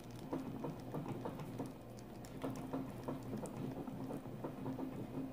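A whisk beating thick corn dog batter in a glass bowl: quick, repeated wet slapping strokes with light taps against the glass.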